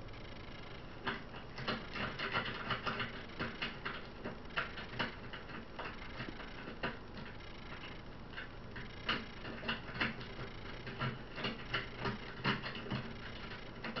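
Stainless steel lock pick working the pins of a pin tumbler lock cylinder under a tension wrench, lifting the pins. It makes irregular small metallic clicks and scrapes that start about a second in.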